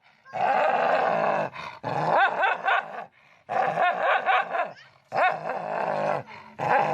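A dog vocalising in a run of long, wavering howl-like sounds, about five in a row with short breaks between them.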